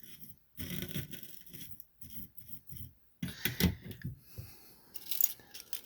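Aluminum foil crinkling and rustling as it is handled and pulled, in irregular scraping bursts with a few sharp crackles, as a soldered joint on the foil is tested.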